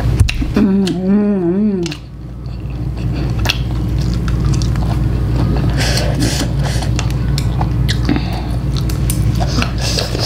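Close-miked chewing of spicy instant noodles, with wooden chopsticks clicking against the bowl, and a short wavering hummed "mm" of relish about a second in.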